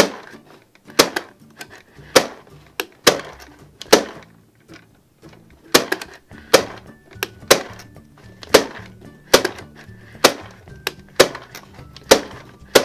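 Toy popcorn maker making irregular sharp popping sounds, like corn popping, about one or two a second, as Moon Dough popcorn is made. Light background music plays underneath.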